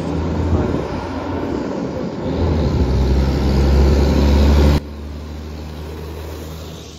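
A motor vehicle's engine running close by with a low, steady hum that grows louder over a couple of seconds. It drops off abruptly about five seconds in, and a quieter steady rumble continues.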